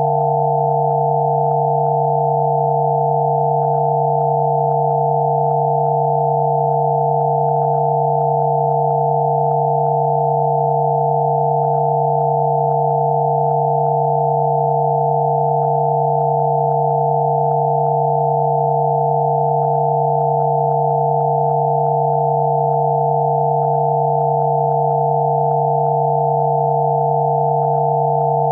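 Several electronically generated pure sine tones sounding together and holding steady: a low hum beneath a cluster of higher tones, with no change in pitch or level.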